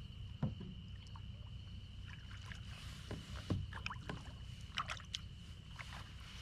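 Small knocks and clicks of gear being handled on a kayak on the water, over a low rumble and a steady thin high-pitched tone.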